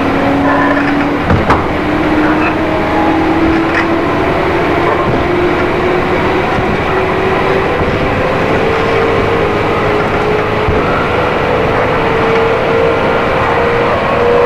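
JR East 211 series electric train running, its externally fanned traction motors giving a whine that rises steadily in pitch as the train picks up speed, over wheel and rail rumble. A couple of short knocks about a second and a half in.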